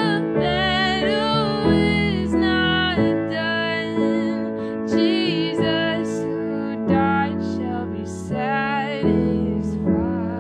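A woman sings a slow worship song solo with vibrato, holding long notes over sustained piano chords.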